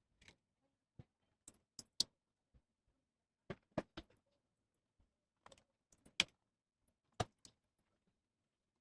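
Irregular sharp clicks and light taps, about a dozen spread over several seconds, the loudest about two seconds in and about six seconds in: small hard laptop parts, screws and tools being handled and set down.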